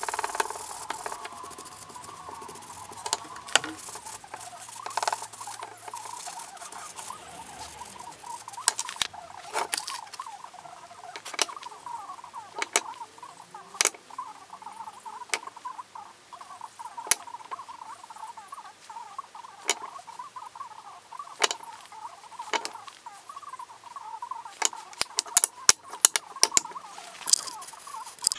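A cloth rubbed over small wooden blocks, making a continuous squeaky scrubbing, with sharp wooden clicks and knocks now and then as the blocks are handled, more of them near the end.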